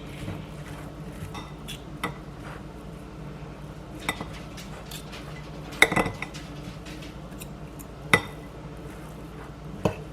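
Kitchen utensils clinking and scraping against a slow cooker pot while pulling apart cooked chicken breast. Separate sharp clinks come every couple of seconds, the loudest about six seconds in.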